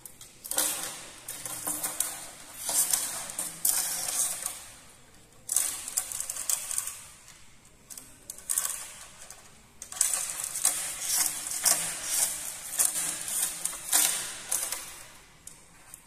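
Yellow-crested cockatoo working at its metal leg chain and the wooden table edge with its beak: rapid clicking, clinking and scraping in runs of several seconds, with short pauses about five and nine seconds in.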